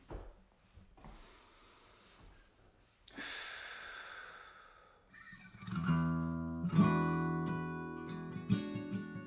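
Acoustic guitar starting to play a little over halfway in, its notes ringing on with a few sharper plucked strokes. Before that there is quiet, with a soft rush of noise about three seconds in.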